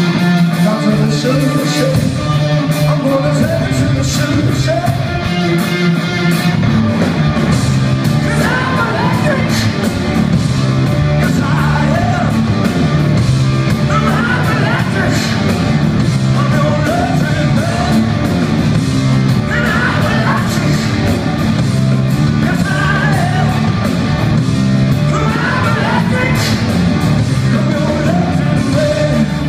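Rock band playing live: electric guitar, bass and drums with a male lead vocal singing over them, loud and continuous.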